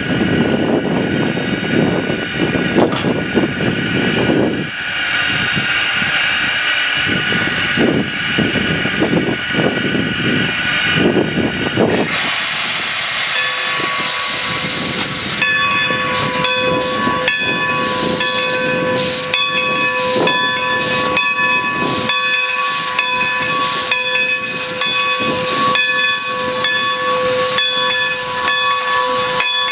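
Steam locomotive Great Western No. 90 hissing steam, with gusts of wind buffeting the microphone. A louder rush of steam starts about twelve seconds in. From about fifteen seconds the engine moves off with a steady beat of chuffs, roughly two a second, over a constant hissing tone.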